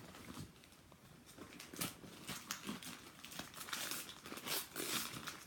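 Wrapping paper crinkling and tearing as a gift is unwrapped by hand, in quick irregular rustles that pick up after a quieter first second or so.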